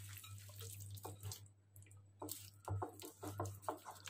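Faint wet squishing of a bare hand working raw anchovies through a damp flour-and-spice marinade in a glass bowl: a few short soft squelches, mostly in the second half, over a low steady hum.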